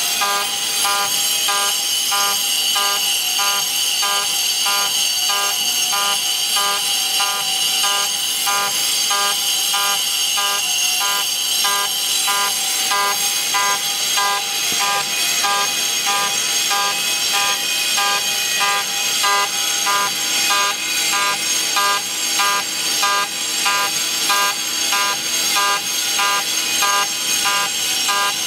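5-axis CNC router's spindle whining steadily while its end mill cuts a metal block, with a regular pulsing of about two a second in the cutting noise.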